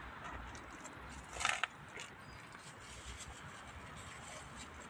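Stray cats feeding on the ground: faint scattered ticking and rustling, with one short, noisy burst, the loudest sound, about a second and a half in.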